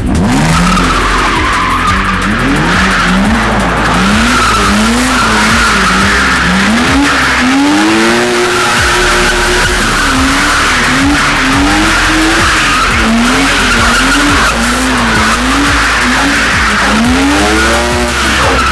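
BMW Z3 drift car with a swapped-in M52 straight-six on a loud exhaust, revving up and down about once a second through a long drift, while the rear tyres squeal steadily.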